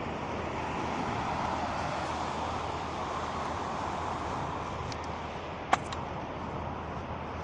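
Beach-cleaning machinery running at a distance as a steady noisy hum that swells during the first few seconds. One sharp click comes near the end.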